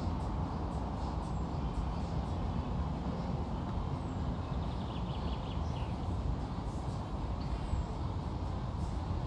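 Steady low rumble of outdoor ambience, with a few faint high chirps and a short rapid trill about five seconds in.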